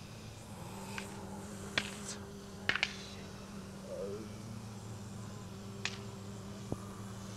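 A steady low hum with several short, sharp clicks scattered through it.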